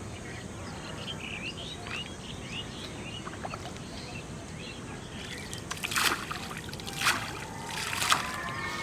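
Small birds chirping over a steady outdoor background, then from just past halfway a series of water splashes about once a second, the loudest sounds here.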